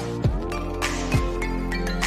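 Background music with sustained tones and a deep, downward-sweeping drum hit about once a second.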